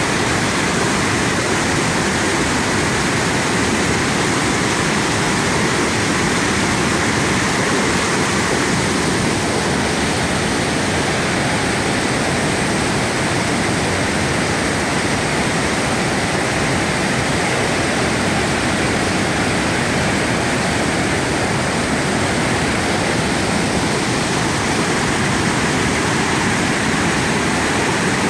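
Raymondskill Falls, a tall tiered waterfall in heavy flow: a steady, loud rush of falling white water.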